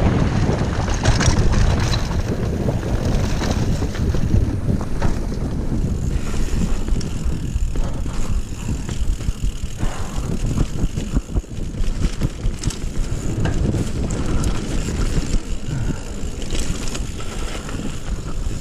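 Mountain bike riding fast down a dirt trail: wind rushing over the rider's action-camera microphone, mixed with tyres on dirt and the bike's rattles and knocks.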